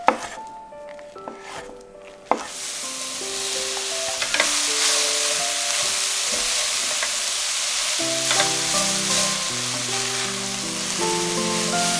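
A couple of sharp knife strokes on a wooden cutting board, then, about two seconds in, a sudden start of loud sizzling as sliced oyster mushrooms fry in a hot stainless steel sauté pan, with a spatula stirring them.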